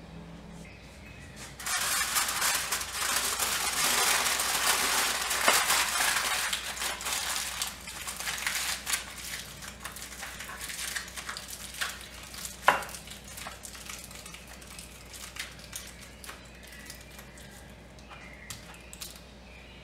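Aluminium foil crinkling as hands fold and scrunch it tightly around a head of garlic. It starts about two seconds in, is densest for the next six seconds, then thins to scattered crackles, with one sharp tick about halfway through.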